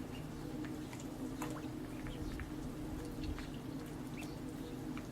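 Little ducks feeding: scattered short clicks, wet pecking and dabbling sounds and brief high squeaks over a steady low hum.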